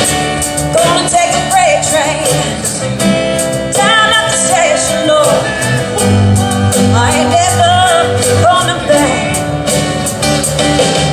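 Live performance of a country-rock song: acoustic guitar and band accompaniment with a steady beat, with sung vocal lines coming and going over it.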